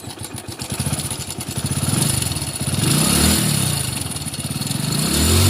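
Hero Splendor Plus single-cylinder motorcycle engine running and revved twice: the pitch rises and falls about three seconds in, then again near the end. This bike's timing chain is loose, the source of the engine noise the repair sets out to fix.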